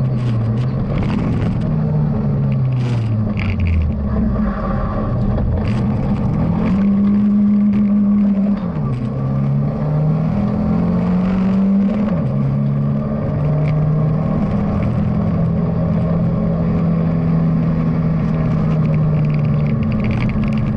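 BMW E30 316i rally car's four-cylinder engine, heard from inside the cabin. The engine pitch falls over the first few seconds as the car slows. It then climbs twice, each climb ending in a sudden drop as the driver shifts up, and holds steady for roughly the last eight seconds.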